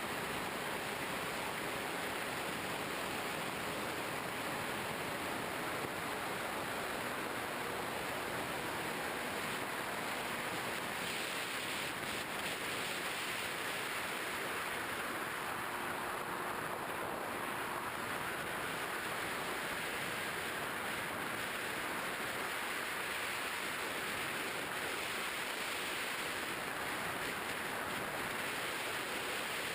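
Steady rushing wind noise of a model plane in flight, picked up by its onboard action camera, with a faint hum underneath.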